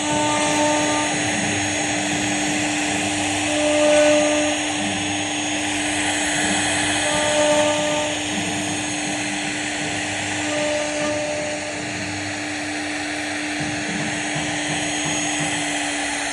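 CNC router spindle running steadily with a constant whine while its bit cuts wood.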